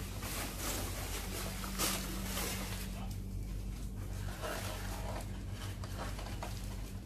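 Plastic cleaning cover and drain hose rustling and scraping as hands work around a split-type AC indoor unit, over a steady low electrical hum.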